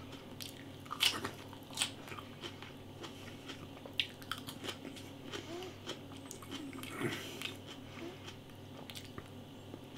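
A person chewing mouthfuls of a chicken burger with lettuce, close to the microphone: soft, wet chewing with a few short crunches and clicks scattered through.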